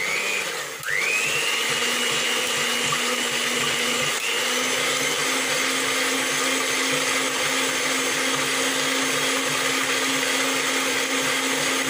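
Electric hand mixer running with a steady high whine as its beaters whip eggs while sugar is added little by little, the first stage of a génoise sponge batter. The motor dips and spins back up about a second in.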